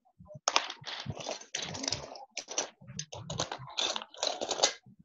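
Computer keyboard typing in quick, irregular runs of keystrokes, heard through a video call's compressed audio.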